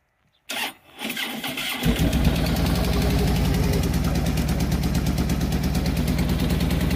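Harley-Davidson Street Glide's V-twin engine cranking on the electric starter about a second in, catching about two seconds in and then idling steadily with an even pulse.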